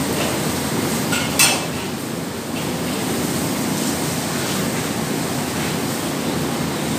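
Squid stir-frying in a steel wok over a gas burner: a steady roaring hiss, with one sharp clank of the metal spatula against the wok about a second and a half in and a couple of lighter clinks around it.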